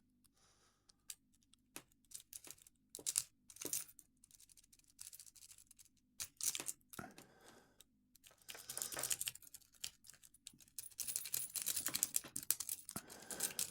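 Irregular metallic clicks, rattles and scraping from padlocks and lock-picking tools being handled and worked, with denser runs of scratchy clicking about nine seconds in and again near the end.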